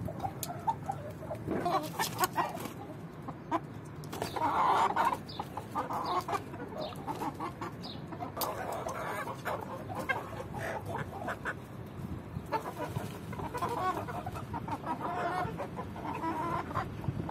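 A flock of chickens, hens and roosters, clucking and calling over one another in short repeated calls, with the loudest burst about four seconds in.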